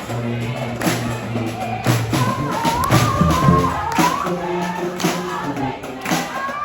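Live street band music: a steady low bass line under a wavering higher melody, with heavy drum hits about once a second.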